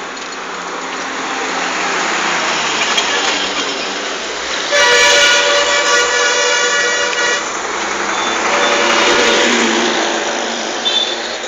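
Busy street traffic noise with a vehicle horn sounding loudly for about two and a half seconds, starting about five seconds in. A shorter, fainter horn follows a few seconds later.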